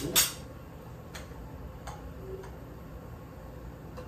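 Cutlery clinking against plates: a sharp clatter right at the start, then a few faint clicks.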